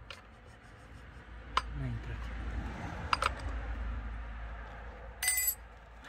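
Steel socket wrench clicking and clinking against the bar nuts of a Defender DC-3600 chainsaw as they are worked loose, over a low rumble. About five seconds in comes a short, ringing metal clink.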